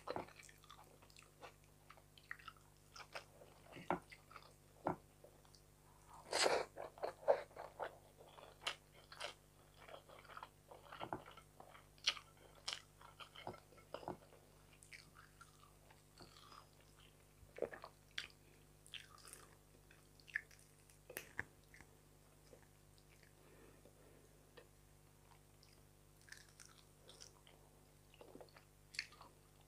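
Mouth sounds of a person eating fried fish and rice by hand: chewing with small wet clicks and crunches, loudest for a second or so about six seconds in.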